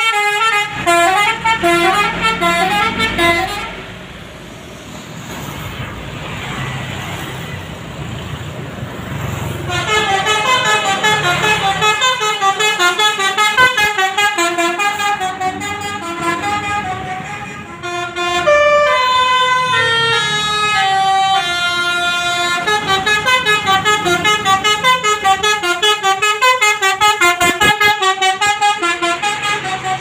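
Indonesian bus telolet (basuri) horn playing a quick melody of stepping notes, with the bus engine and road noise underneath. The horn stops for several seconds about four seconds in, leaving only the engine rumble, then starts again with a falling run of notes near the middle.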